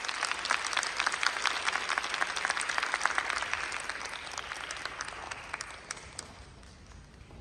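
Audience applause in a hall: dense clapping that thins out and fades away over the last couple of seconds.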